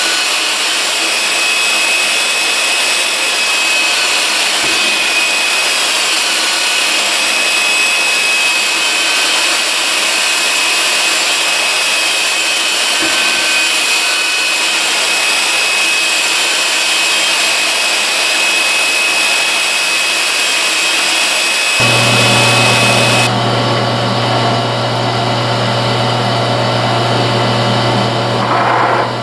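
Workshop power-tool motors running: a steady, loud hiss with a high whine until near the end. Then a second, deeper-humming machine starts and the first one stops about a second later.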